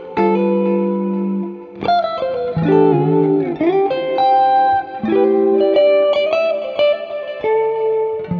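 Clean electric guitar, a Fender Mustang, playing ringing extended chords: C/F, then Em11, then Am7. The notes are picked one after another and left to ring together. About three seconds in, the pitch briefly dips and comes back.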